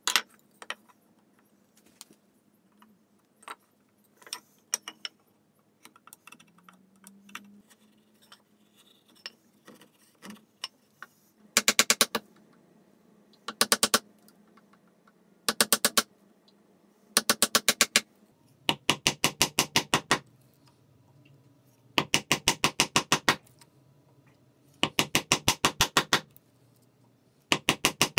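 A mortise chisel being driven into an oak rail with quick runs of rapid mallet taps, chopping a mortise. There are eight runs of strikes, each a second or so long, starting about a third of the way in. Before them there are only scattered light clicks and knocks of tools on the bench.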